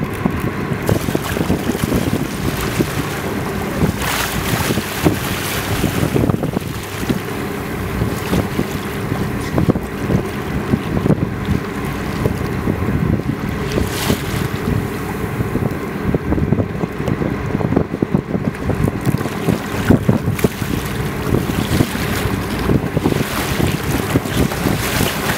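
Wind buffeting the microphone over a boat's steady hum, with water sloshing and splashing at the hull where a hooked bluefin tuna lies at the surface. A few brief louder gusts or splashes break the steady noise.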